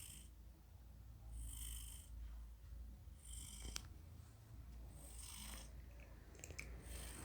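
Domestic cat snoring softly in its sleep, one snore about every second and a half to two seconds. There is a small click about halfway through.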